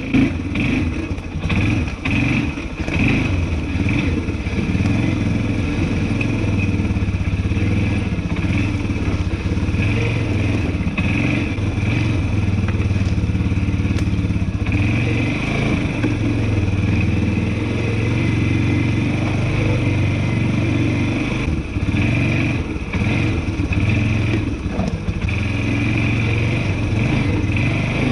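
ATV engine running steadily at low speed on a rough woodland trail, with clatter and knocks from the machine jolting over the uneven ground, most of them in the first few seconds.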